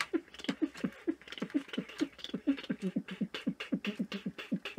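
A man's voice making rapid, rhythmic beatbox-like mouth sounds, about four or five short pulses a second.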